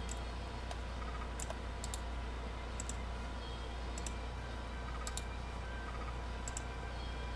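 Computer mouse clicking, about eight sharp clicks roughly a second apart, while a list randomizer is run again and again, over a low steady hum.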